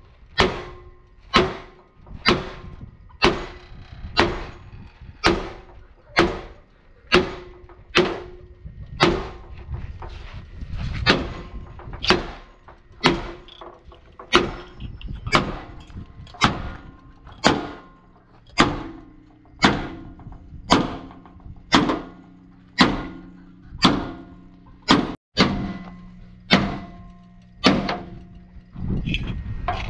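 Sledgehammer blows on a steel truck chassis rail, about one strike a second, each with a short metallic ring.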